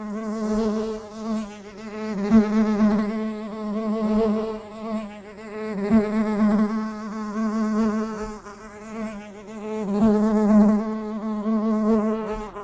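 A bee buzzing in flight, a steady wavering drone with its loudness swelling and fading every few seconds as it comes closer and moves away.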